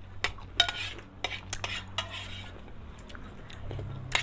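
A metal spoon clinking and scraping against a metal bowl of noodles in soup as it is stirred and scooped, in a dozen or so short, irregular taps.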